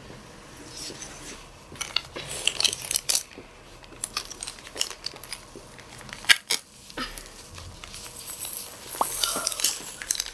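Small plastic powder sachets being crinkled and torn open by hands in plastic gloves: an irregular run of crackles and tearing sounds.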